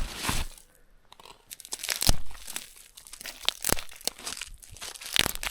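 Pieces of firewood being handled and picked through: an irregular string of sharp cracks and crunches, the loudest about two seconds in.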